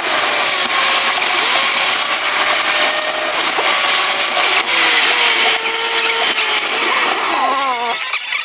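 Fast-forwarded in-car audio: engine and road noise, sped up into a loud, high rushing hiss with wavering, sliding whines. Shortly before the end it cuts off as music begins.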